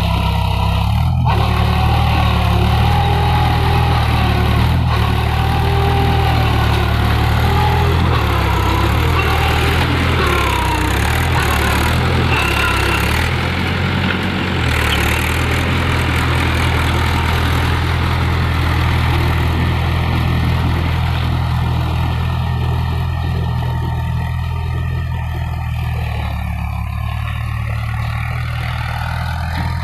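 Mahindra 415 DI tractor's diesel engine running steadily while ploughing, easing slightly in its last few seconds.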